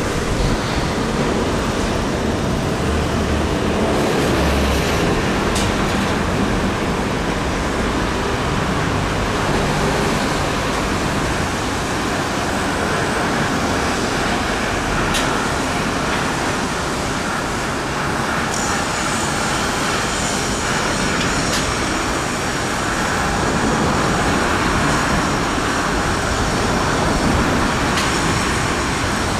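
Steady outdoor background noise, a traffic-like roar, with a faint high whine joining a little past halfway and a few faint clicks.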